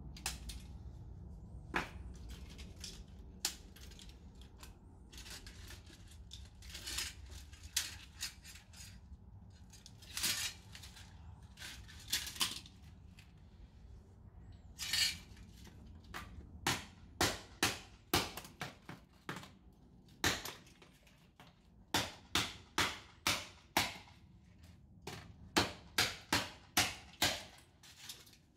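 Plastic and parts of a smashed DJI FPV drone being snapped and broken apart: irregular sharp cracks and snaps, a few longer crunching, tearing sounds about a third and halfway in, then a quick run of snaps, one to two a second, through the second half.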